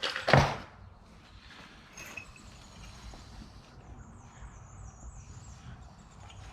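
Rummaging through a bag of small items: a loud rustle with a thump in the first half second, then faint handling noises.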